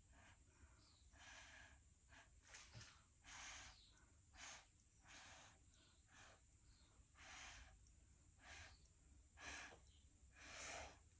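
Soft, short puffs of breath blown through a flattened paper straw, about ten at uneven intervals, pushing wet poured acrylic paint across the board.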